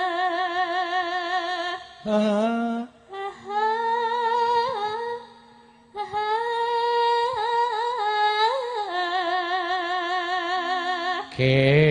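A Javanese sinden (female gamelan singer) sings a slow vocal line with wide vibrato on long held notes, in phrases broken by short pauses, over a faint steady low tone. Near the end a louder, lower male voice comes in singing.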